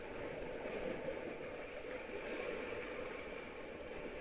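Sea surf washing against shoreline rocks: a steady rushing noise.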